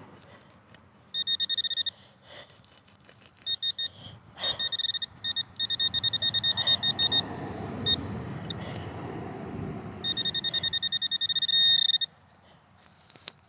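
Metal detector beeping in rapid bursts of short, high, steady-pitched beeps while it is passed over dug soil, signalling metal in the dirt. Low rustling and a few sharp clicks from the dirt being handled come in between the bursts.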